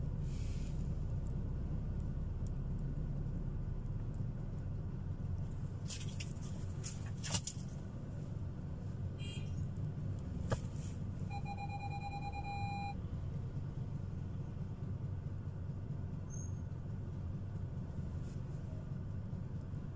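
Steady low rumble of street traffic, with a few sharp clicks about a third of the way in and a short run of electronic beeps just past the middle.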